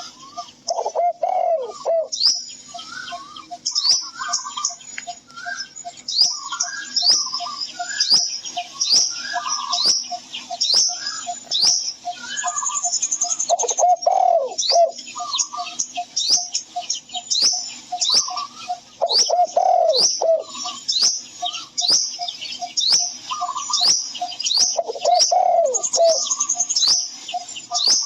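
Birdsong: many small birds chirping in quick falling notes throughout, with a dove cooing four times.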